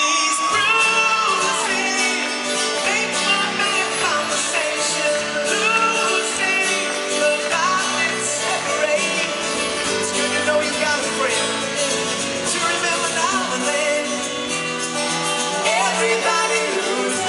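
Live pop-rock band performing a duet, a man singing lead over acoustic guitar, bass guitar and drums, with a woman's voice singing near the end.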